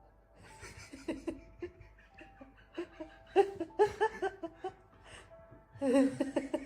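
People laughing and giggling in short bursts, loudest about three and a half seconds in and again near the end, over faint steady music.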